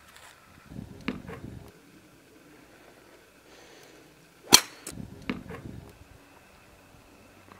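A golf club hitting a golf ball off the grass: one sharp, loud crack about four and a half seconds in, followed by a few softer knocks and rustling. A few duller knocks and rustles come about a second in.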